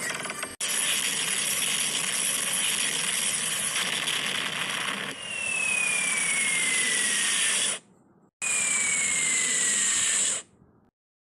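Edited-in sound effect: a loud rushing hiss with a whistle gliding slowly downward, heard twice, each time cut off abruptly, like a cartoon falling whistle.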